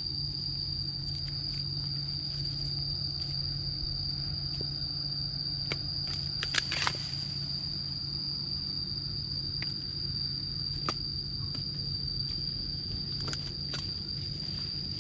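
A steady high-pitched insect drone over open-air ambience, with a few scattered short knocks and scuffs from a wooden stick prodding a crocodile on the ground; the loudest cluster comes about six and a half seconds in.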